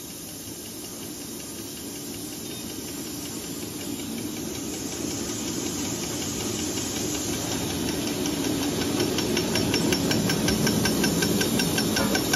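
Plastic straw making machine running with a steady hiss and hum that grows louder. From about two-thirds of the way in, a rapid, even ticking joins it: the straw cutter chopping the continuous tube into straws.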